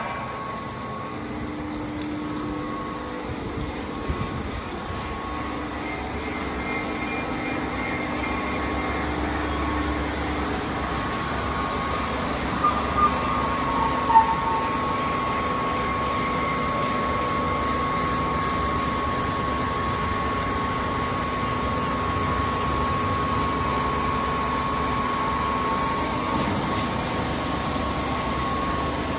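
Smith H200 centerless grinder running, grinding a long metal bar under a spray of coolant: a steady machine noise with a thin, steady high whine, and a few brief clicks about halfway through.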